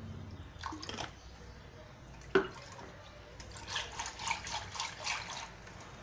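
Water being poured and splashing into a bowl of spiced buttermilk (mattha). There is a single sharp knock about two and a half seconds in, and a run of splashes in the second half.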